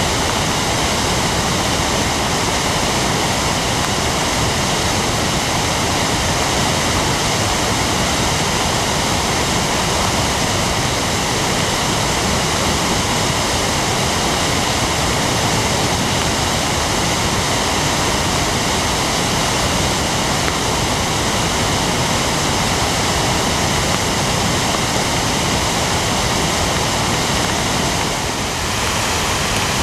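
River in flood rushing past: a loud, steady roar of fast, churning floodwater.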